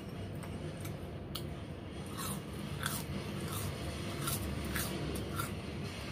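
Someone chewing crispy fried potato-and-cheese sticks: a run of short, dry crunches, about one every half second or so.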